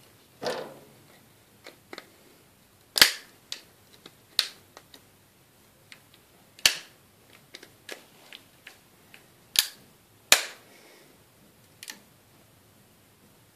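Irregular sharp clicks and knocks of hard objects, tools and phone parts, being handled and knocked together, about a dozen in all. The loudest come about three seconds in and twice around ten seconds, with a softer scraping noise just after the start.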